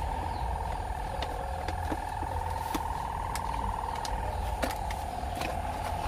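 Scattered light clicks and knocks as a car steering wheel is handled and offered up to the steering column, over a steady buzzing tone with a fast flutter.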